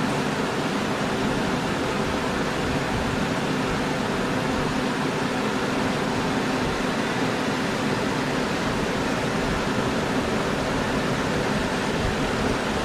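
Jet airliner engines running at low power: a steady rushing noise with a faint, even hum underneath.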